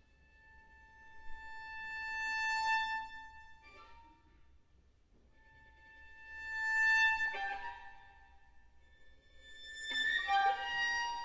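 Violin bowing long sustained high notes that swell louder and fade away, twice, with a short note between them. About ten seconds in, a sharper and louder phrase begins.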